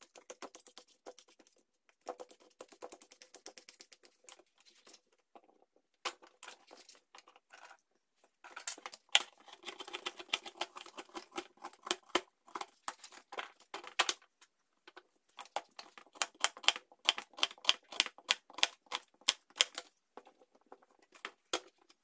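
Knife chopping cucumber and carrot on a plastic cutting board: runs of quick, sharp taps, several a second, broken by short pauses.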